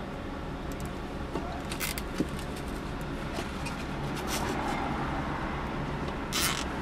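A zip tie being pulled tight around a thin microphone cable on a car's windshield pillar: a few short zipping rasps and clicks, the loudest a little before the end, over a steady low rumble.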